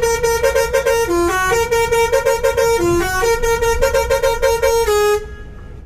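A bus's telolet musical air horn playing a quick tune of stepped notes, with runs of fast repeated short notes. It cuts off abruptly about five seconds in.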